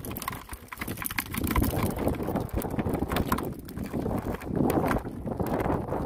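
A cast net being shaken out over a plastic bucket of water: a quick series of wet clicks, rattles and splashes as small fish drop in and flap, over wind on the microphone.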